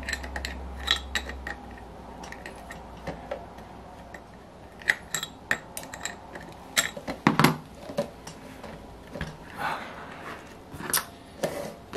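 Small steel wrench and metal model-engine parts clicking and clinking as an exhaust header stub is loosened from the cylinder head of an OS FF-240 Pegasus four-cylinder model engine. The clicks come at irregular intervals, with a louder cluster about seven seconds in.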